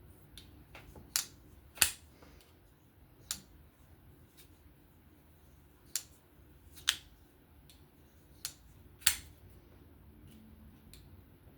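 Civivi Sokoke folding knife being worked by hand, its blade flicked open and shut so it snaps into place with sharp metallic clicks: about seven loud snaps at uneven intervals, with fainter ticks between them.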